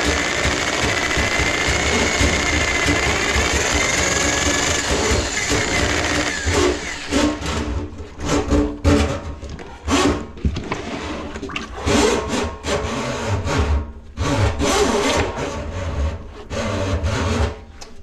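A power tool's electric motor running steadily, then from about six seconds in started and stopped in short irregular bursts.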